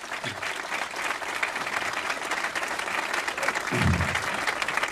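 Crowd applauding: many people clapping at once in a dense, steady patter. A brief low thump sounds about four seconds in.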